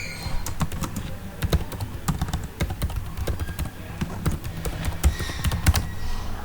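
Typing on a computer keyboard: a quick, uneven run of key clicks as code is entered.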